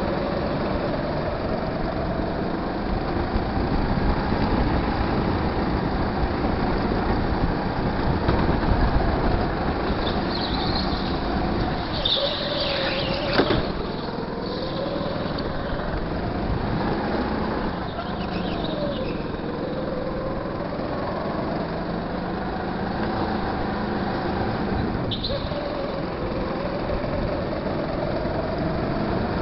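Go-kart engine heard from on board, its pitch rising and falling again and again as the throttle opens and closes through the corners. A few brief high squeals come around the middle and near the end, with a sharp knock about halfway through.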